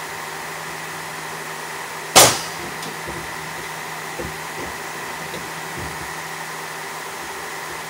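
A single sharp nail-gun shot about two seconds in, fastening a 2x4 backing board, over a steady machine hum, with a few small knocks afterwards.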